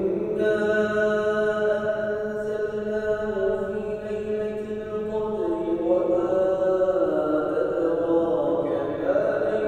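A solo voice chanting an Islamic recitation in long, drawn-out melodic notes that slide slowly from pitch to pitch, with a steady low hum beneath during the first half.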